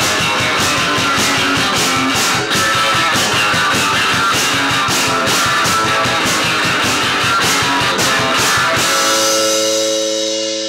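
Rock band playing live: Gibson electric guitar and drum kit on a fast, steady beat. About nine seconds in the drums stop and a guitar chord is left ringing and slowly fading, the end of the song.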